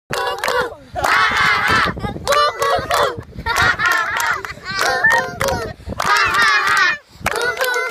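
A group of children laughing and shouting together in repeated bursts about a second long, with hands clapping throughout, as in a laughter-yoga exercise.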